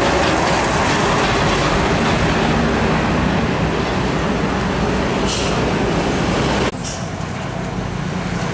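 Heavy diesel trucks driving past close by: engines running under a steady noise of tyres on the road. The sound drops abruptly about two-thirds of the way through and then carries on at a lower level with another truck approaching.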